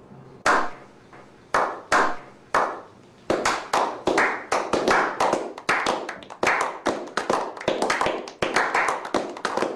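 A slow clap by a small group of men: single sharp hand claps spaced about half a second to a second apart, then from about three seconds in more hands join and the clapping quickens into steady, overlapping applause.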